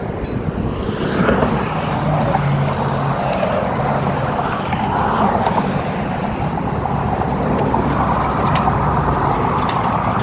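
Highway traffic going by: a steady rush of tyres and engines that swells as vehicles pass.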